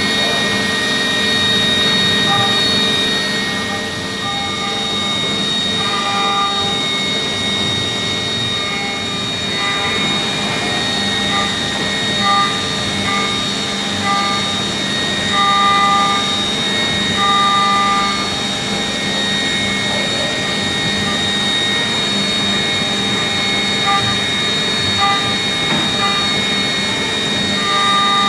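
Five-axis CNC machining centre milling A5052 aluminium: a steady spindle whine with high tones and cutting noise, and short pitched tones that come and go as the cutter engages the work.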